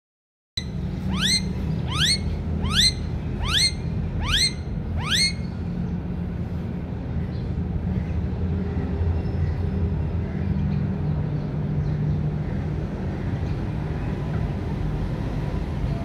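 Rose-ringed parakeet giving a series of six shrill, downward-sweeping screeches a little under a second apart, stopping after about five seconds, over a steady low rumble.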